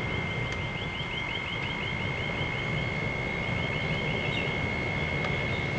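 Computer fan blowing air into a lit TLUD wood-gas stove, its speed controller turned up: a steady rush of air with a steady high whine. A faint chirping repeats about five times a second.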